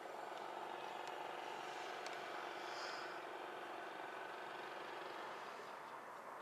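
Steady hum of distant city traffic, even and unbroken, with a couple of faint ticks.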